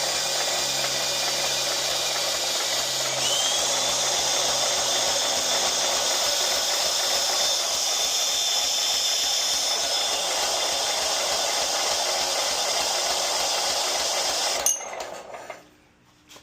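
An electric motor whirs steadily as it turns over the Scag walk-behind mower's engine, rising in pitch as it spins up, then cuts off abruptly near the end. No knock stands out in it.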